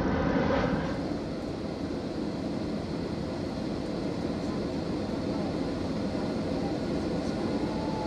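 Jet airliner noise: a loud engine and air rush heard inside the cabin for the first second, then cutting to the steadier, quieter rumble of a jet airliner flying low overhead.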